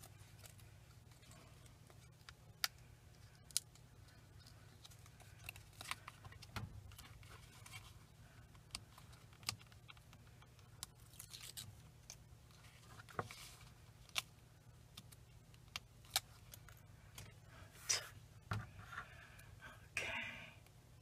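Faint paper-crafting handling sounds: the backing being peeled off squares of 3D foam mounting tape and a cardstock cut-out pressed onto a card, heard as scattered light clicks and short rustles.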